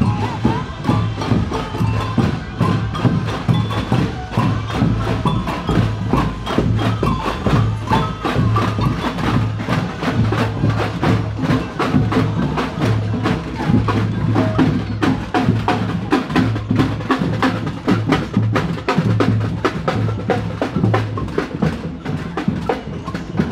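A parade percussion band playing: many drums and sticks struck together in a fast, busy rhythm over a repeating low beat.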